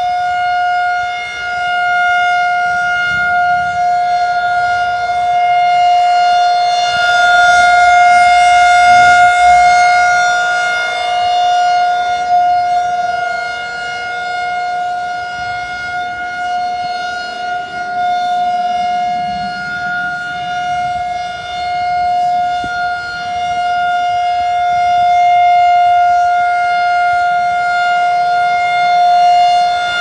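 Federal Signal 2001-130 rotating outdoor warning siren sounding a steady single tone at unchanging pitch. Its loudness swells and fades slowly as the horn turns toward and away, loudest about a third of the way in and again near the end.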